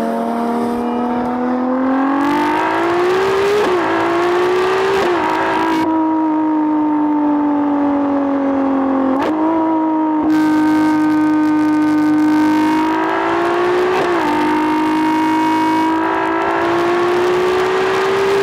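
Ferrari Daytona SP3's 6.5-litre naturally aspirated V12 running under load. Its note climbs and then breaks off with quick gearshifts of the seven-speed dual-clutch gearbox about 3.5 and 5 seconds in, eases down through the middle with further shifts around 9 and 14 seconds, and rises again near the end.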